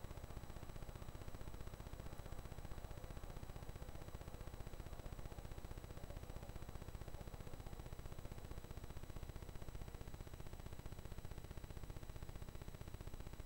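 Steady low hum and hiss of background noise: room tone.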